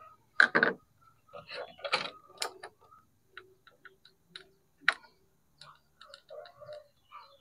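Clicks and knocks of a Philips hand mixer's small electric motor being handled and lifted out of its opened housing, the loudest knock about half a second in, with lighter ticks between.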